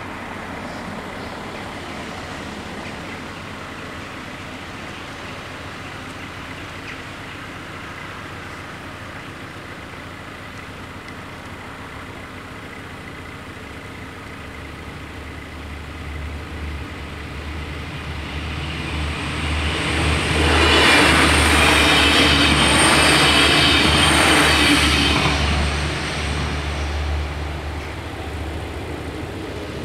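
Alstom Coradia LINT 81 diesel multiple unit passing over a level crossing: a low diesel hum builds from about halfway through, the rumble and rush of the train are loudest for several seconds in the last third, then fade.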